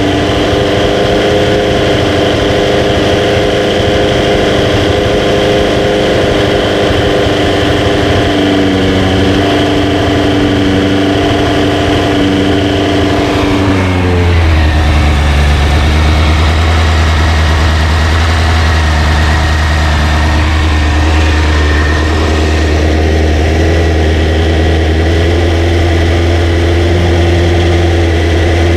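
Honda CBR929RR's inline-four engine idling steadily. About halfway through, its pitch eases down slightly and a deep low hum grows stronger.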